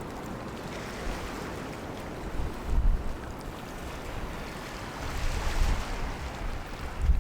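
Wind buffeting the microphone in gusts over a steady rushing noise like surf.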